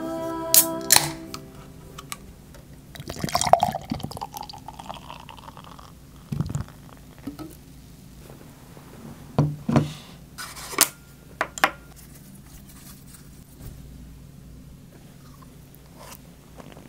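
An aluminium Budweiser beer can is snapped open with two sharp clicks, then beer is poured from it into a glass beer mug, a rushing, fizzing pour. A few short knocks follow as the can and the mug are handled.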